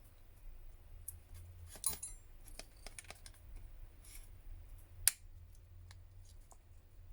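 Scattered light clicks and taps of a smartphone and small tools being handled on a workbench, with a sharper metallic click about two seconds in and the loudest tap about five seconds in, over a low steady hum.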